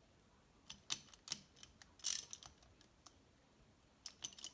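Socket ratchet clicking in a few short runs as small 5/16 bolts are snugged down: about a second in, around two seconds in, and again near the end.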